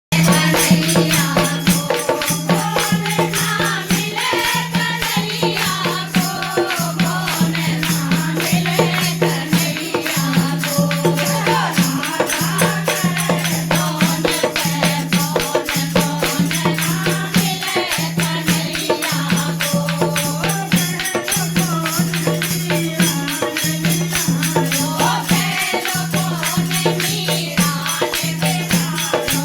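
Devotional Krishna bhajan music: singing over fast, steady jingling hand percussion and a held low note that breaks off briefly every second or two.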